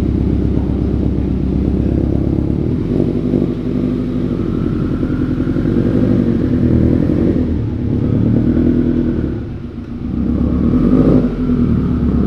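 Rebuilt turbocharged Subaru EJ257 flat-four engine running at low revs as the Forester pulls away slowly. The revs dip briefly, then rise near the end.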